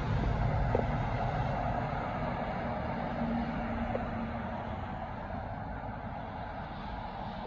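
Heavy semi-trailer truck passing close and driving away, its engine and tyre noise fading steadily.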